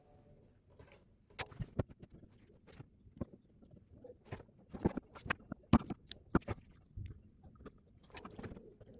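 Irregular small clicks and taps of hand tools and small parts being handled on a workbench while a power socket is refitted to a circuit board, busiest and loudest around the middle.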